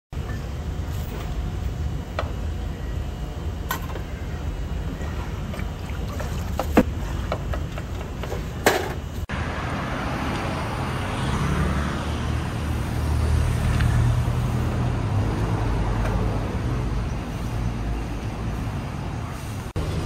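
Background noise at a noodle stall's cooking counter with a few sharp clinks of crockery and utensils, two of them loud; then, from about nine seconds in, steady city street traffic, cars and motor scooters passing, swelling and easing off.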